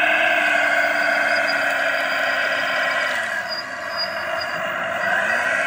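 Radio-controlled model construction vehicles running, with a steady motor whine whose pitch slowly falls and then rises again near the end as they are driven.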